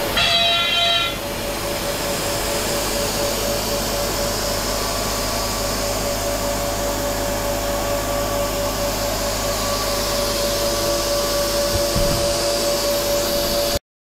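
CNC mill's Teknomotor ATC41 spindle running and cutting as it faces the sacrificial board: a steady whine over constant cutting noise, cutting off abruptly near the end.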